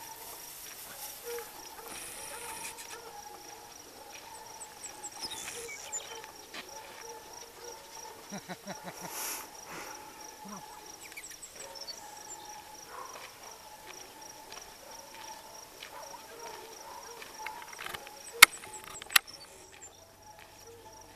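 Rural outdoor ambience: a steady high insect trill throughout, with scattered faint ticks and two sharp loud clicks about a second apart near the end.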